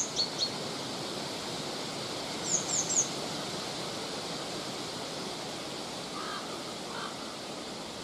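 Steady rush of autumn wind through forest, with short high bird chirps at the start and a quick run of three high chirps about two and a half seconds in. A few faint lower calls near the end.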